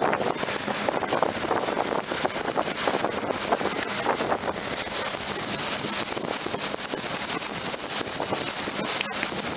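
Steady wind rushing over the microphone on a boat under way across choppy lake water, mixed with the rush of water past the hull.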